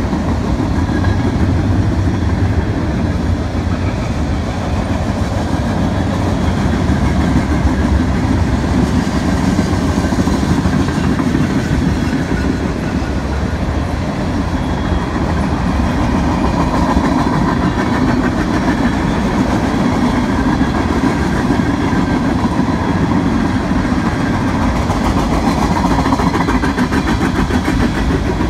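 Cars of a mixed freight train (covered hoppers, lumber flatcars, boxcars) rolling past: a loud, steady rumble of steel wheels on rail. Faint rhythmic clicking comes in near the end.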